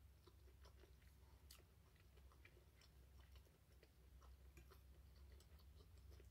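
Faint chewing of a mouthful of seafood pasta: scattered small wet mouth clicks, over a low steady hum.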